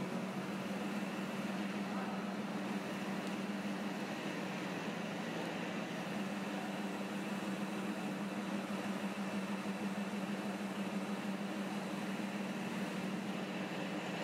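Plastic film recycling extruder line running: a steady machine hum with a constant low tone and an even hiss.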